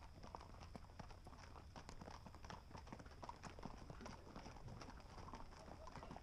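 Faint hoofbeats of an Arabian endurance horse: a quick, irregular series of light clip-clopping clicks.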